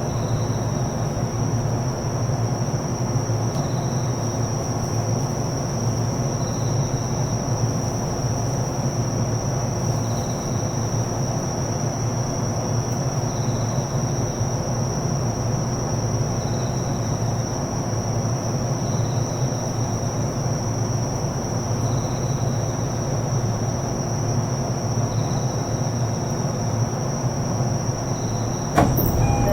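E233-series commuter train standing at a station platform, its onboard equipment giving a steady hum with a thin high whine over it, and a faint high beep repeating about every three seconds. Near the end a sudden louder sound marks the doors starting to close before departure.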